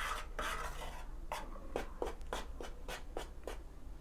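Pieces of fish fillet being mixed by hand with spices and starch in a bowl: faint rubbing, then a quick run of about seven short, soft scraping strokes.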